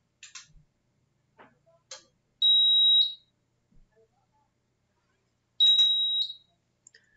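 Two loud, steady, high-pitched electronic beeps, each about half a second long and about three seconds apart, with a few faint clicks before the first. They come from the AES 7707 subscriber restarting after being reset to its default configuration.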